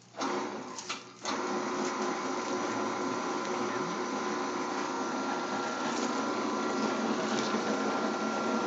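WS-0251 scrap copper wire stripping machine switched on and running empty, with a steady mechanical hum from its motor, rollers and cutters. The sound starts suddenly, dips for a moment about a second in, then runs on steadily.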